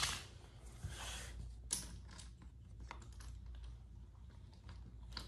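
Scattered light clicks and rustles of toy trains being handled on wooden track, the sharpest click right at the start and others about one and nearly two seconds in, over a steady low hum.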